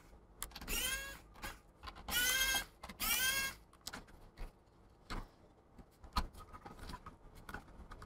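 Pen-style electric precision screwdriver whirring in three short runs, each a brief whine that bends in pitch, backing out the screws that hold a laptop's hard drive. Light clicks and taps of small parts being handled follow in the second half.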